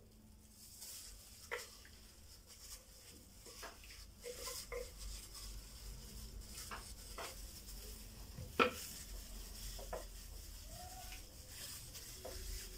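Kitchen handling sounds as a thick marinade is scraped out of a plastic food-processor bowl onto a raw chicken in a glass bowl: scattered light knocks and scrapes of plastic against glass, with one sharper knock about eight and a half seconds in.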